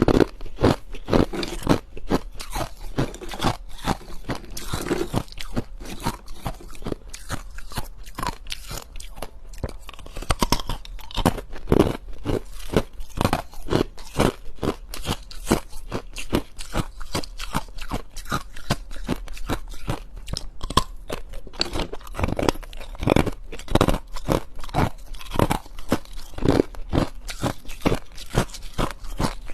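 Ice being chewed close to the microphone: a continuous run of sharp, irregular crunches as pieces are bitten and crushed between the teeth.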